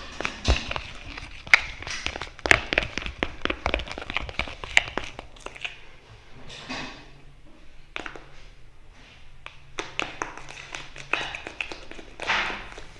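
A utensil stirring clear slime made with borax activator in a pot, tapping and clicking against the sides in quick irregular runs, with a pause midway and a short scrape near the end. The slime is still stringy and not fully activated.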